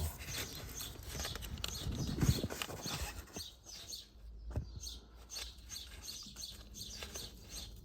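Light clicks and rattles of hands feeling around and handling a turbo pipe and its hose clamp in a car's engine bay, over a low background hum.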